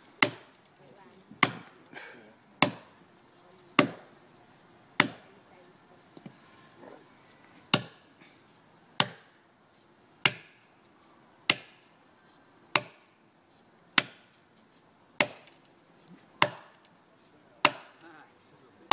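Axe chopping into the base of a standing tree trunk, a sharp strike about every 1.2 seconds with one longer pause near the middle: a felling cut.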